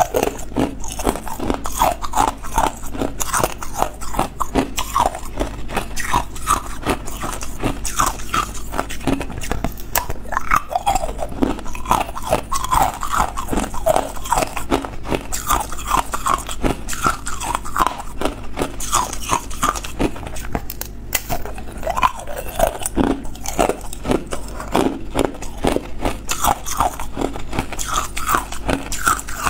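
Hard ice cubes being bitten straight from an ice cube tray and chewed: a continuous run of sharp crunches, several a second.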